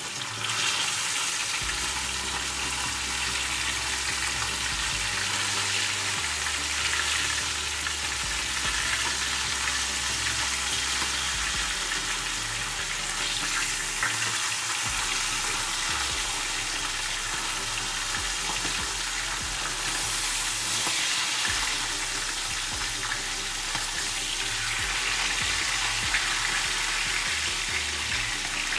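Sea bream shallow-frying in hot oil in a non-stick frying pan: a steady sizzle, with the fish turned over now and then with a fork.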